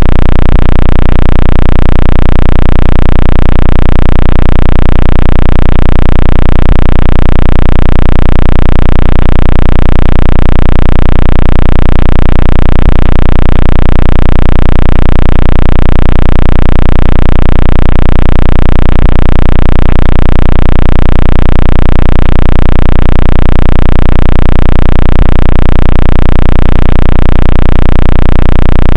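Synthetic water-ejection tone for clearing a phone speaker: a loud, deep, unbroken electronic hum that pulses steadily about one and a half times a second.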